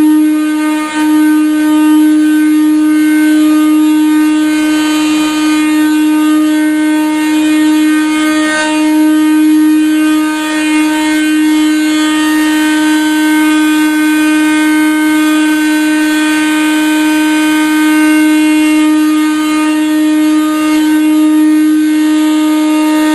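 Hot-water boiler heating system's plumbing giving off a loud, steady, one-pitch whistling tone that does not waver, the racket the owner keeps shouting at.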